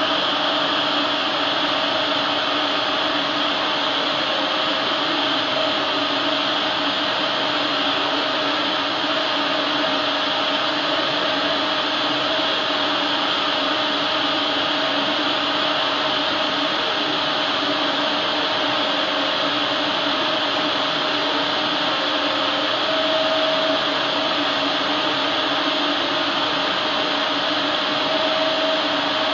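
Epilog Mini 24 35-watt CO2 laser cutter running while it cuts 3 mm wood: a steady whirring air noise from its fans and motors, with a constant hum underneath.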